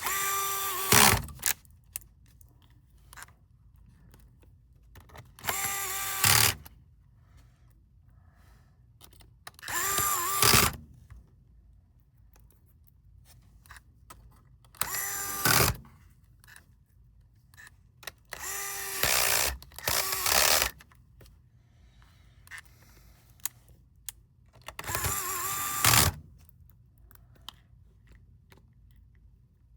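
Electric screwdriver driving screws into a laptop's hinge and metal plate, in six short whirring runs of about a second each, several seconds apart.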